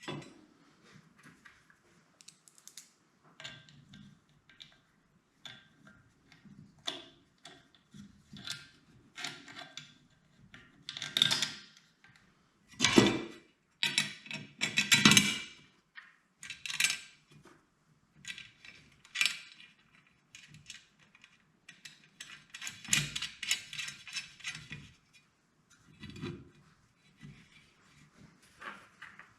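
Irregular clicks, knocks and scraping of tools and metal hardware being handled by hand, with a few louder clanks around the middle and a longer rattling scrape later on.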